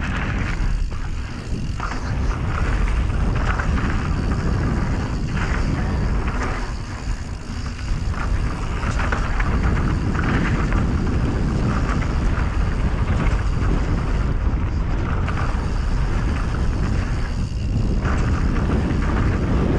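Canyon Strive mountain bike riding down a dirt bike-park trail: wind rushing over the helmet or bike-mounted microphone, with tyre rumble and frequent short rattles and knocks as the bike goes over bumps.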